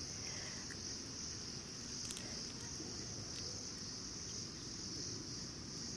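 Crickets singing in a steady, unbroken, high-pitched chorus.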